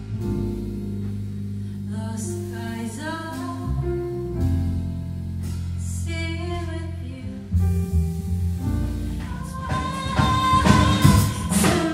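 Live jazz-fusion band: a woman singing over piano and upright double bass, with drums coming in and the band growing fuller and louder about two-thirds of the way through.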